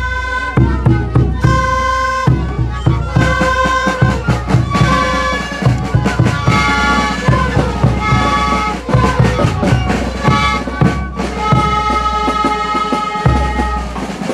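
Tarka ensemble playing: several wooden duct flutes sounding held notes together with a reedy, bagpipe-like tone, over a steady beat of bass drums and snare drums.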